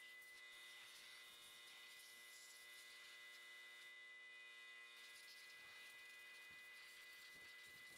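Near silence: a faint, steady electrical hum with a thin high whine, unchanging throughout.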